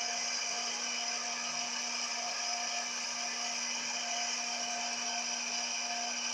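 Media Tech hot-air popcorn maker's fan blowing steadily with a constant whir and a low hum, kernels tumbling in the hot air before any have popped.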